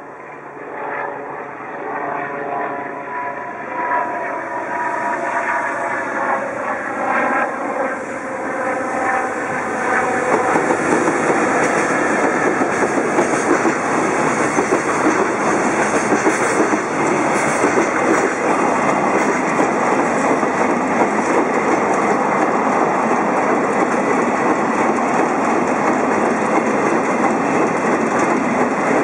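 JR Freight EF65 electric locomotive approaching and passing, growing louder over about the first ten seconds. Then a long empty freight train of container flatcars and Wam 380000 covered wagons rolls past, with steady wheel-on-rail noise and clickety-clack over the rail joints.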